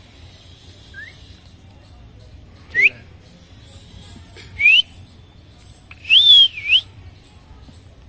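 Short rising whistles: a faint one about a second in, two louder ones, then a longer whistle that rises, falls and rises again near the end.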